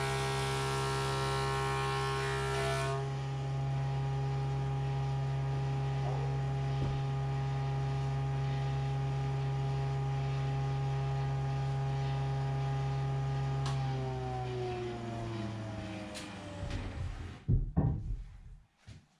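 Stationary woodworking machine's electric motor running with a steady hum, with added hiss from cutting wood in the first few seconds. About fourteen seconds in it is switched off and winds down, its pitch falling, and a few loud knocks follow near the end.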